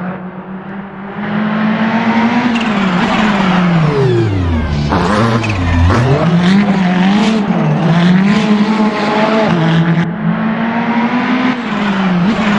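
Ferrari 488 GT3's twin-turbo V8 at full racing effort, its pitch rising and stepping down through gear changes. About four seconds in the revs fall steeply through several quick downshifts, with a few sharp cracks, then climb again as it pulls away and shifts up.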